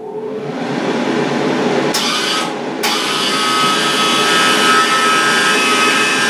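Jefferson MIG welder's wire-feed motor whirring steadily, with the wire speed turned right up, as it drives gasless MIG wire through the torch lead with the contact tip out. It grows louder over the first second or so, and two sharp clicks come about two and three seconds in.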